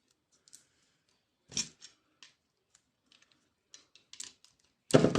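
Scattered small clicks and snips of hands working electrical tape around two rechargeable batteries, with a sharper snap about a second and a half in and a louder clatter just before the end.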